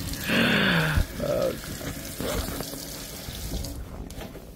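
Kitchen faucet running, the stream splashing onto wet umbrella fabric in a stainless steel sink, thinning out near the end.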